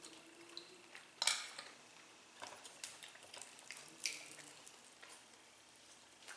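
Scattered clinks and knocks of dishes and utensils during a meal, a handful of separate short taps, the loudest about a second in.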